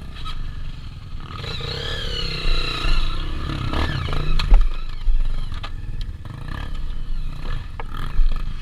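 Trail motorcycle engines running, with one revving up and down for a couple of seconds, plus scattered clicks and clatter.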